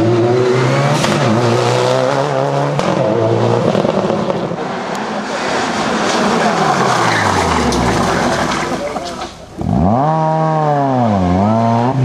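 Rally car engines in turn: a Subaru Impreza's flat-four engine at speed, then a Suzuki Swift rally car's engine falling in pitch as it slows. After a short drop the Swift's engine revs up and down several times in quick succession over the last couple of seconds.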